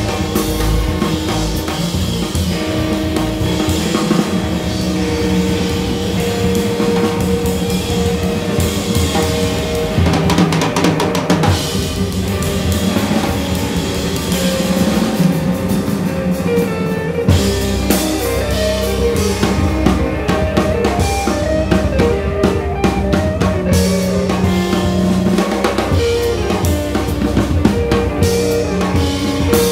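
Live jazz trio of guitar, bass and drum kit playing, with held guitar notes over busy drumming. The bass end grows fuller a little past halfway.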